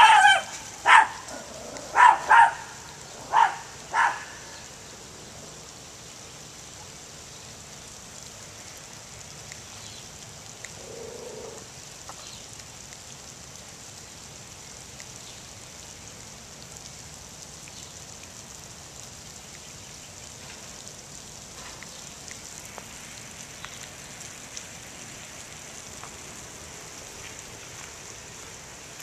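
A small dog barking sharply, about six barks in the first four seconds, then a steady light hiss of rain for the rest.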